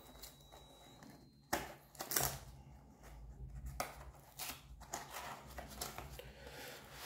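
Faint, intermittent rustling and a few light knocks of packaging being handled while car door scuff plates are unpacked.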